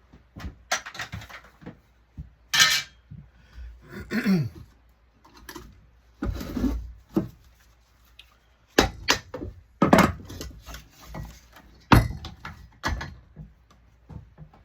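Metal parts and hand tools clinking, clanking and knocking at irregular intervals while a digital ballast's aluminum housing is dismantled for scrap, with a short falling scrape about four seconds in. The sharpest knocks come in the second half.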